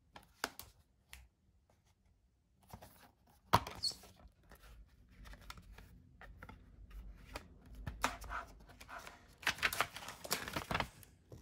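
A plastic DVD case being handled and opened: a few light clicks, a sharp snap about three and a half seconds in, then paper and plastic rustling near the end as the folded booklet is pulled out.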